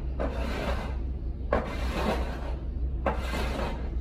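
Three slow, rough scraping strokes, about one every second and a half, over a steady low hum.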